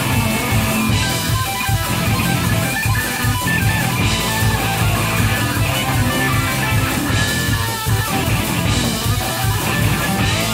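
Live punk rock band playing at full volume: electric guitars, electric bass and a drum kit.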